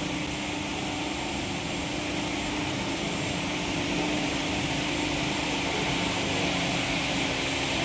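Steady machinery drone, an even hiss with a constant low hum under it, as from air-conditioning or chiller plant running, rising slightly in level over the stretch.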